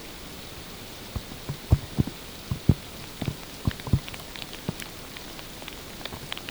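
Heavy snowfall with no wind: snowflakes landing in irregular soft taps, a few louder close ones between about one and four seconds in, over a steady faint hiss.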